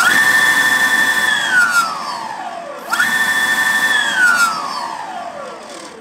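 Electric skateboard's brushless motor whining as it drives an MBS 8-inch wheel through a belt, run up from the remote to check the belt's tracking. It holds a high pitch, winds down, is spun up again about three seconds in, holds briefly, then coasts slowly down.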